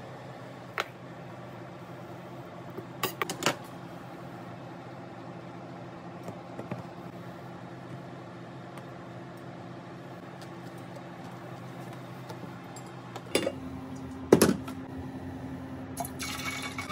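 Light clinks and taps of a spoon and food being laid on a wooden serving board, over a steady low kitchen hum. About thirteen seconds in, a different steady hum sets in with a couple of clunks, and a baby starts crying at the very end.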